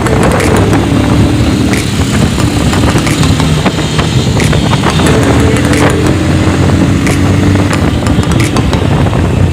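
Motorcycle engine running steadily while riding, over a loud dense rushing rumble.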